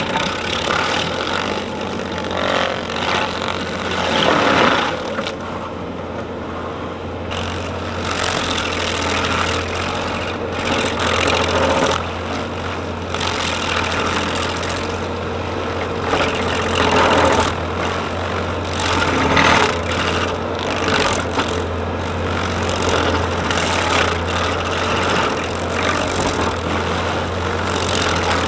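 A skid steer's engine runs steadily under load while an Arbor Wolf stump grinder attachment chews into a stump. The grinding noise swells and fades irregularly as the cutter bites into the wood.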